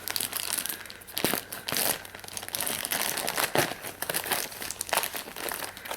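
Gift-wrapping paper being crinkled and torn open by hand, in irregular rustles and crackles.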